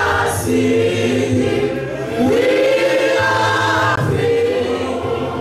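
Church congregation singing a hymn in chorus, many voices holding long notes in phrases.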